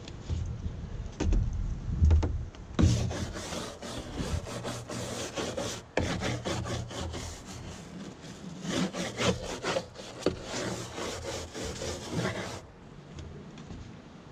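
Kitchen scrub brush scrubbing a stained plastic boat seat with quick back-and-forth strokes, starting about three seconds in and stopping near the end. A few low knocks come first.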